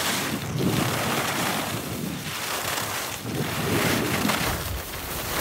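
Skis scraping and hissing over hard, grainy snow on a downhill run, with wind on the phone's microphone; the rushing noise rises and falls every second or so.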